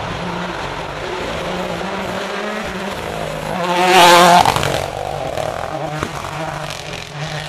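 Mini John Cooper Works WRC rally car's engine approaching at speed. It is loudest as the car passes close about four seconds in, then fades as the car drives away.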